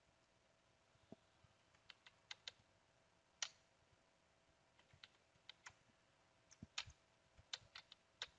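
Faint typing on a computer keyboard: about a dozen separate, irregularly spaced key clicks.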